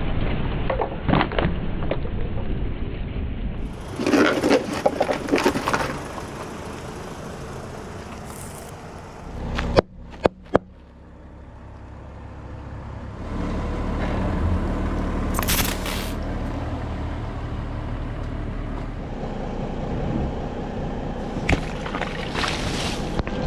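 A car's tyres rolling over and crushing objects, in a series of separate takes: bursts of crunching and cracking, a few sharp snaps about ten seconds in, then the car's engine and tyres running steadily with further cracks near the middle and near the end.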